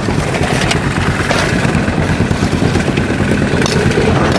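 An engine running steadily, with a few sharp knocks over it.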